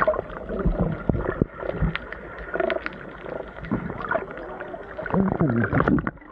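Muffled underwater sound from a camera held just below the surface: bubbles gurgling and water sloshing, with many sharp clicks and a few short gliding tones.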